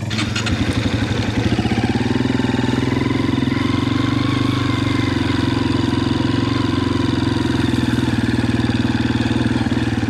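Quad bike engine running as the bike is ridden along. It picks up over the first second, then holds an even note at steady throttle.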